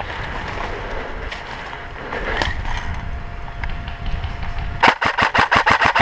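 Low rumble of movement and handling, then near the end a rapid string of sharp pulses, about seven a second, typical of an airsoft electric gun firing a full-auto burst.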